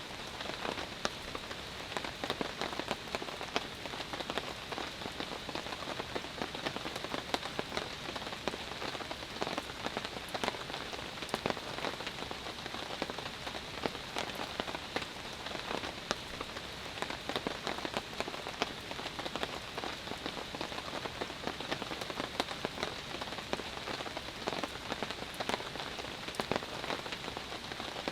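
Steady rain falling on surfaces, with many separate drop strikes ticking through an even hiss.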